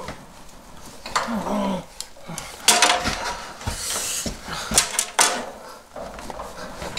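Handling noises at a thickness planer: several sharp knocks and clatters, among them a pair of glasses set down on its metal top, with clothing rustling in between.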